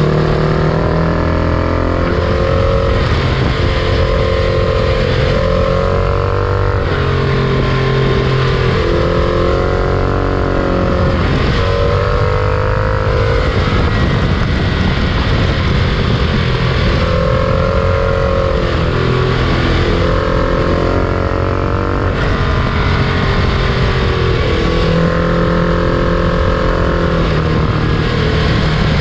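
Freight train running: a steady, loud diesel drone with wheel and rail noise, and tones that waver up and down every few seconds.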